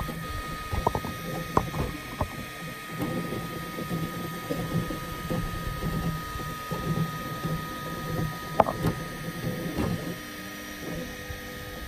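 Ultimaker 3 Extended 3D printer printing: its stepper motors whir in short tones that change pitch as the print head moves, over a steady fan hum, with several sharp clicks.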